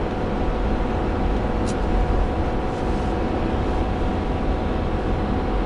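Steady drone of a heavy-duty diesel pickup's engine working hard up a steep grade with 30,000 lbs in tow, heard inside the cab with road rumble underneath. Much of the noise is the engine cooling fan running, which the driver says is the case most of the time.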